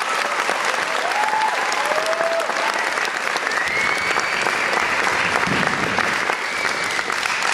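Audience applauding steadily through a curtain call, with a few cheers and whoops rising over the clapping.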